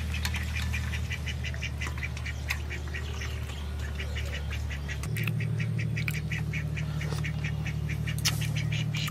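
Ducks quacking in a rapid, regular series, several calls a second, over a steady low hum that gets louder about five seconds in.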